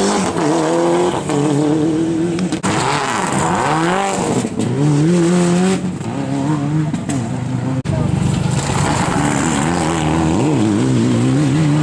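Rally cars' engines revving hard through a tight corner, the pitch rising and falling sharply with throttle and gear changes, one car after another with abrupt cuts between them.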